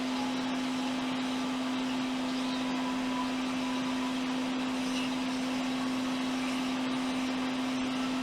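Hot air rework station blowing steadily: a constant airflow hiss over a steady hum, as used to desolder the backlight driver IC from the logic board.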